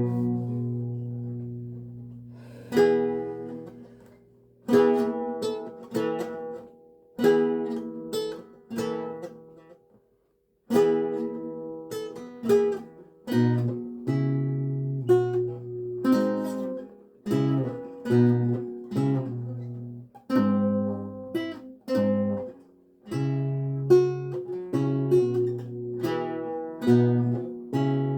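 Seven-course Renaissance lute, tuned to A=415, played solo: plucked chords and single notes over ringing bass courses. A chord rings out and fades at the start, there is a brief pause about ten seconds in, and then a busier run of notes over a moving bass line follows.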